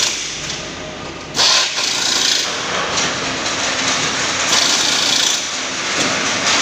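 Metal-workshop din as aluminium scaffold frame parts are handled and fitted, with tools and machinery running. It gets suddenly louder about a second and a half in.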